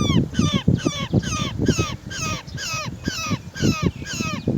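Roller calling: a rapid, regular series of harsh, downward-sliding calls, about three a second, over a low rumbling noise.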